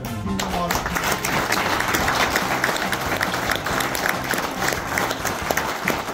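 A small group applauding, a dense patter of hand claps that starts just after the beginning and keeps going steadily.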